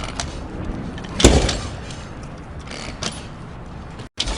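A motorcycle kickstarter being kicked over by foot, with a loud mechanical clunk about a second in and a lighter one near three seconds.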